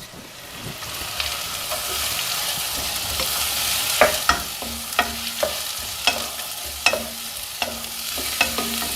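Chopped onion, round red chillies and curry leaves sizzling in hot oil in a pan, the sizzle building over the first second or two. From about four seconds in, a spatula knocks against the pan roughly once a second as the tempering is stirred.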